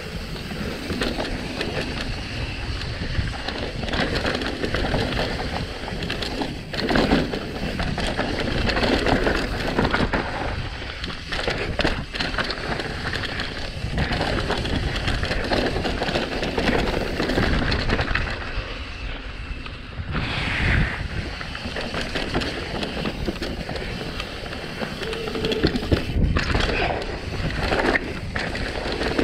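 Mountain bike riding fast down a rough downhill trail: tyres rolling over dirt and rock, the bike rattling and knocking hard over bumps and drops.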